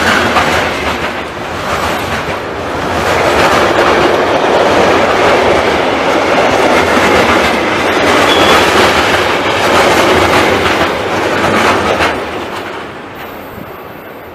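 Train passing close by on the line, wheels clattering over the rails, loud for about twelve seconds and then fading as it moves away.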